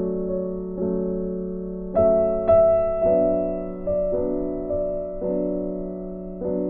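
Soft background piano music, with chords struck about once a second and left to fade.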